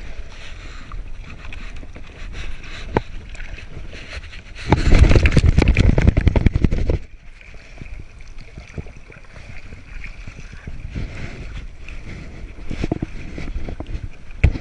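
Water lapping and splashing against a stand-up paddleboard, with scattered knocks and clicks. About five seconds in, a loud stretch of rough, rumbling noise lasts about two seconds.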